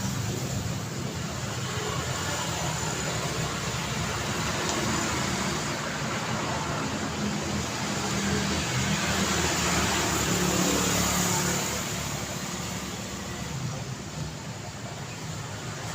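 Street traffic: road vehicles running and passing in a steady wash of engine noise, swelling a little about two-thirds of the way through and easing near the end.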